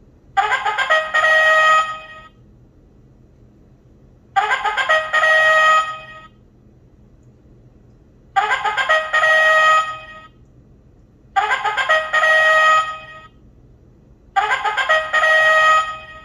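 1985 Lorus Doki-Doki alarm clock sounding its electronic bugle-horn alarm: a short, brassy bugle call of a few notes, about two seconds long, repeated five times with a pause of about two seconds between calls.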